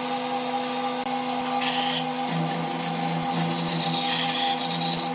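A wood lathe motor runs with a steady hum while a hand-held turning tool cuts into the spinning wood, giving a short scrape just before two seconds in and a longer hissing scrape after that.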